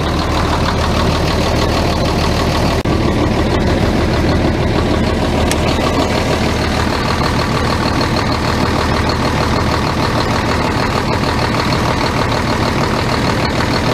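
Yuchai diesel engine of a Chinese front-end loader idling steadily, just after its fuel injection pump was refitted.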